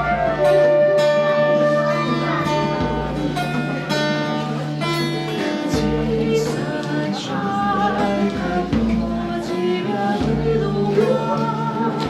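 Live band playing a song: singing over acoustic guitar and other instruments, with a steady low note beneath.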